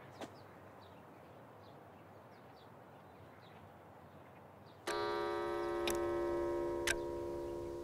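A faint quiet background with a few short, high, faint chirps. About five seconds in, a sustained musical chord of steady held notes comes in suddenly and slowly fades, with a couple of light clicks.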